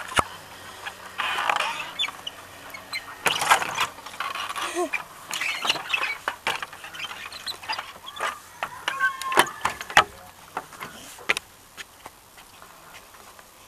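Metal chains of a hanging wooden plank bridge clinking and rattling, with the planks knocking and scraping as someone walks across it; the clatter dies down near the end.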